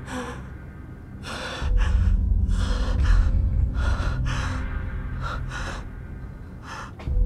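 A man breathing hard in repeated ragged gasps, about ten breaths, over a low rumbling drone that swells about a second and a half in.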